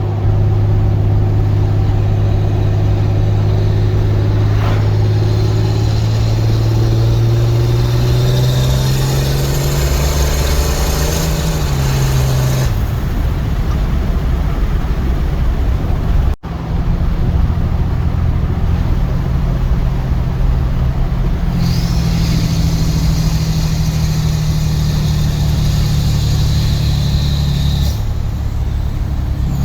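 Cummins 6.7-litre turbo-diesel inline-six of a 2015 Ram 2500 with a 4-inch exhaust, running loudly; its note climbs steadily in pitch, then drops sharply about thirteen seconds in. After a brief break about halfway, it runs on steadily with a high whine coming in over the second half.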